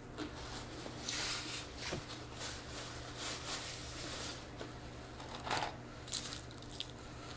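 Soft table noises of a fast-food meal: scattered rustles of paper napkins and wrappers, sipping through a straw and chewing, with a few small clicks and a faint steady hum under them.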